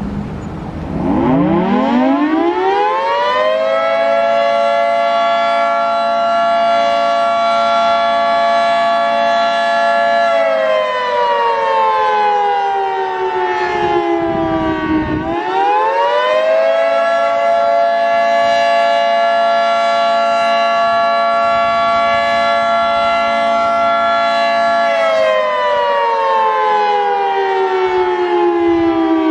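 Federal Signal 3T22 three-tone outdoor warning siren sounding the attack signal, a chord of several tones. It winds up from low over the first three seconds and holds steady, winds down from about ten seconds in, climbs back up about fifteen seconds in and holds, then winds down again near the end.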